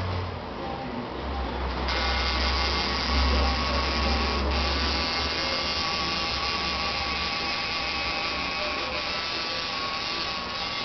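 Tattoo machine buzzing steadily, a little brighter from about two seconds in.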